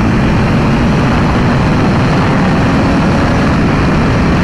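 Wind rushing over a helmet microphone at highway speed, with the BMW S1000RR's inline-four engine running steadily at cruise underneath.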